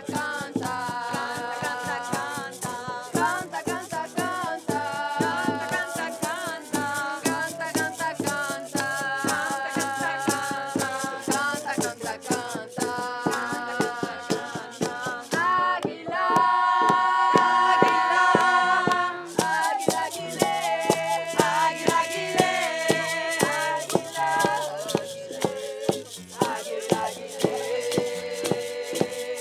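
Drum circle music: frame drums struck steadily with padded beaters, with rattles shaking and a group singing along, joined by a wooden end-blown flute and an acoustic guitar. It swells louder for a few seconds midway with long held notes.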